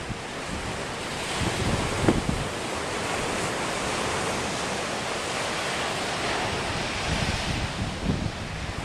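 Atlantic surf breaking and washing up a sandy beach in a steady rushing hiss. Wind buffets the microphone in low rumbles now and then, most clearly about two seconds in and near the end.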